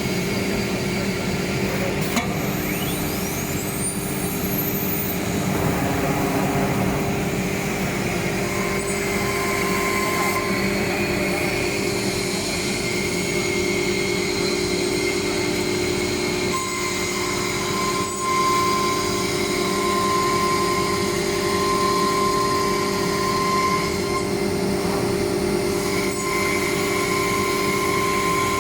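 Automatic-tool-change woodworking CNC router running, with a steady machine hum and whine. A high spindle whine climbs in pitch a couple of seconds in.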